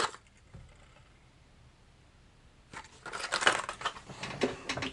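A quiet stretch, then a little past halfway the crinkly rustling and light knocks of packaging and cardboard being handled.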